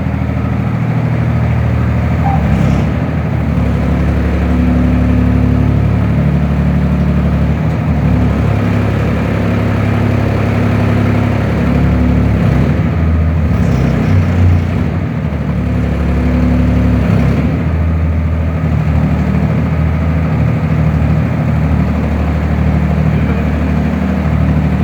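The engine powering a YBM-3000 solar pile driver's hydraulics runs steadily, its pitch stepping up and down a little now and then as the hydraulic load changes. No hammer blows are heard.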